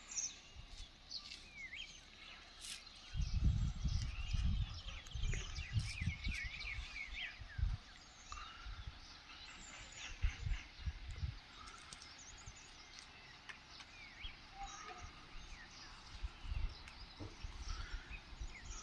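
Several small birds chirping and twittering together in a morning chorus, busiest in the first eight seconds or so. Low rumbling thumps come and go underneath, loudest about three to five seconds in.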